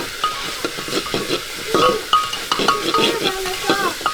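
Chicken pieces frying and sizzling in a pan, stirred with a utensil that scrapes and clicks against the metal again and again. Brief background voices come in now and then.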